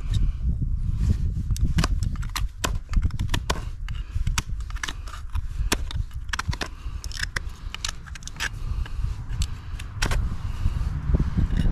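Hoof knife paring the sole and frog of a horse's hoof: irregular sharp scrapes and clicks as the blade cuts, over a low rumble.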